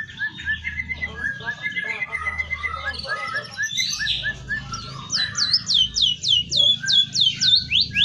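Caged emprit kaji songbird singing: a run of short, quick chirps, then from about five seconds in a loud, fast series of sharp downward-sweeping whistles, about four a second. The uploader bills it as a bird in full song with canary and white-rumped shama imitations.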